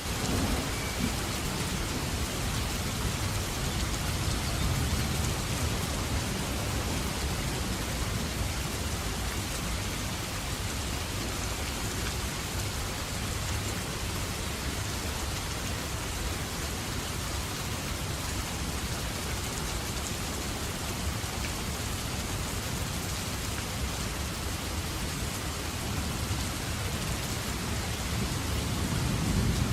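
Steady rain falling, an even hiss of drops on a surface, with low thunder rumbling in the first few seconds and again near the end.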